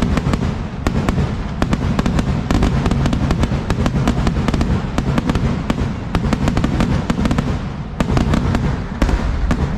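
Kerala vedikkettu fireworks going off in a rapid, continuous barrage of firecracker bangs. Many sharp cracks a second run together over a deep rumble, with brief slight lulls near the end.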